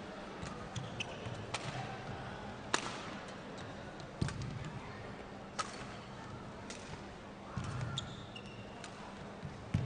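Badminton rally: rackets striking the shuttlecock in sharp cracks about every second and a half, with short squeaks of court shoes and footsteps between the hits.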